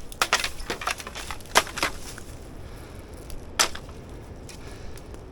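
Dry sticks of driftwood kindling cracking and clattering: a series of sharp snaps, a cluster near the start, two more around the middle and the loudest about three and a half seconds in.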